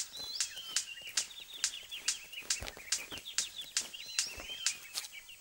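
Male superb bird of paradise in courtship display: sharp clicks about twice a second, with a rapid, high chattering call over them.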